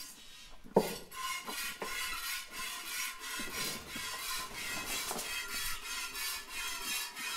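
Hand milking a Jersey cow: streams of milk squirting rhythmically into a stainless steel bucket, a few squirts a second. A single sharp knock about a second in.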